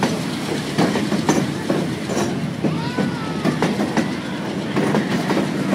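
Canadian Pacific boxcars rolling past close by: a steady rumble of steel wheels on rail, with repeated clacks as the wheels cross rail joints.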